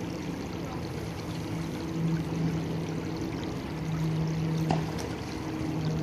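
Shallow creek water trickling over stones, with a low hum that comes and goes in stretches of about a second. There is one short click near the end.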